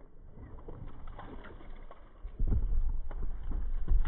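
A hooked bass splashing and thrashing at the surface beside a kayak as it is led to the landing net. A low rumble on the microphone comes in about two seconds in and becomes the loudest sound.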